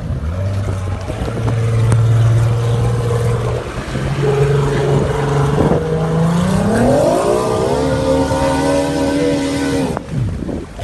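Outboard engine of a racing tunnel-hull powerboat running at low revs, then revving up as the boat pulls away. The pitch steps up, rises steadily and holds high, then drops away near the end.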